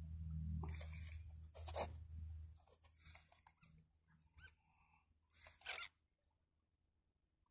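Faint, short breathy sounds a second or two apart, with a brief rising, whimper-like sound near the middle: a person breathing hard and straining while fighting a big fish on a bent rod. Under it is a low hum that fades out about halfway through.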